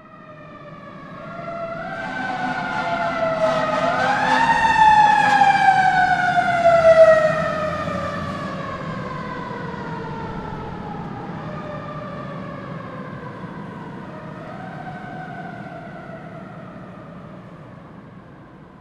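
Fire engine siren wailing: it winds up sharply about four seconds in, then slides slowly down in pitch while growing fainter, with a second smaller rise and fall near the end, over a low rumble.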